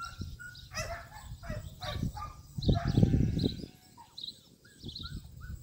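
A young herding-dog pup gives a few short high yips, with small bird chirps and bursts of low rumble around them.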